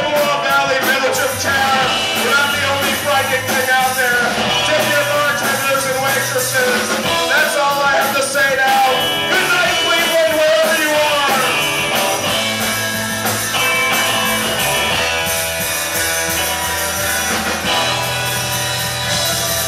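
Live rock band playing, with saxophone and violin over electric guitar and drums.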